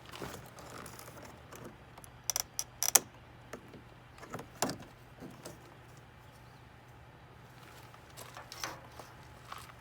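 Scattered sharp clicks and knocks of a pry bar and screwdriver working at plastic interior door trim and clips, with a quick run of several clicks a little over two seconds in.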